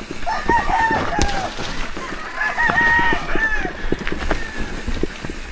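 Roosters crowing: two long arching crows, one early and one about halfway through, over a steady low clatter from the bike riding on the rough trail.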